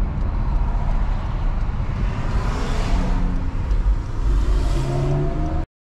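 Road noise inside a moving car on a highway: a steady low rumble of tyres and engine, with two swells of hiss a couple of seconds apart. The sound cuts off suddenly just before the end.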